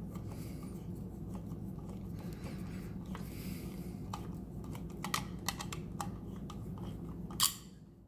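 Screwdriver turning a terminal screw on a plastic wall switch by hand: small clicks and scrapes of the tip and the switch body being handled, with one sharper click near the end, over a steady low hum.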